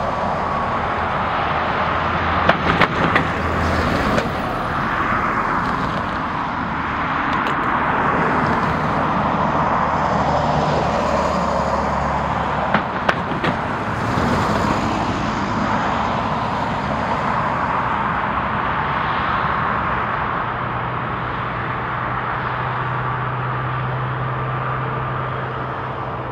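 Steady roar of jet airliner engines mixed with road traffic noise, with a faint whine toward the end. A few sharp clicks come about 3 seconds in and again about 13 seconds in.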